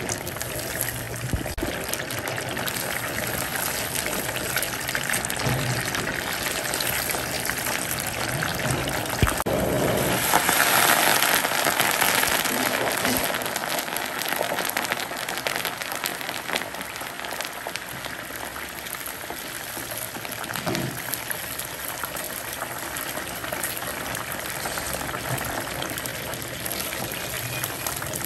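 Water running and splashing steadily, swelling louder about ten seconds in before settling back.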